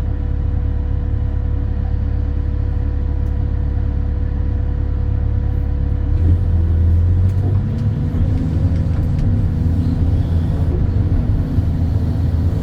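Excavator's diesel engine running steadily under the cab, a low drone that shifts to a higher, louder note about six seconds in as it works.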